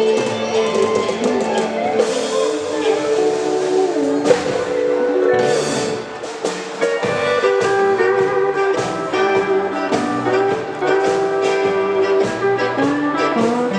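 A live band playing with electric guitars over a steady beat.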